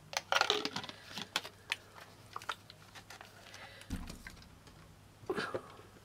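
Small clicks and taps of a plastic water bottle and its screw cap being handled, with a soft low thump about four seconds in.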